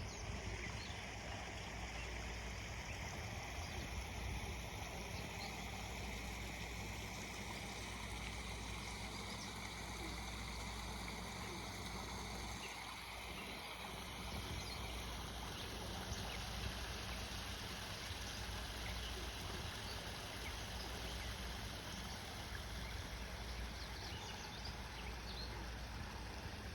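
Backyard waterfall: water splashing and trickling steadily.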